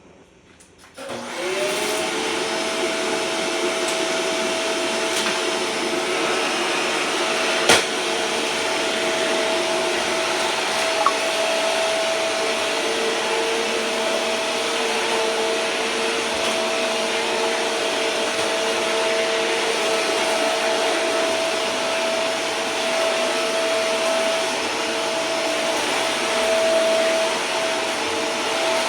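Vacuum cleaner switched on about a second in, its motor spinning up and then running steadily with a whine over a hiss of rushing air. A sharp knock sounds about eight seconds in.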